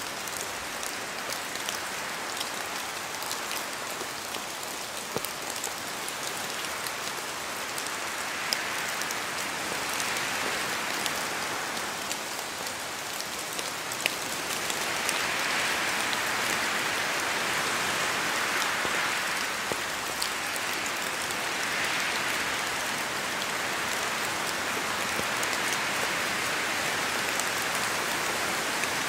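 Steady rain falling in a spruce forest, with separate drops pattering down from the branches, and wind swelling through the trees several times in slow rises and falls.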